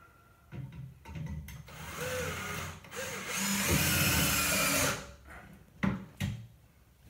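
Power drill driving a long construction screw through a sliding closet door's top track into the wall. It runs in short pulls and then one loud run of about a second and a half that stops abruptly, followed by two sharp clicks.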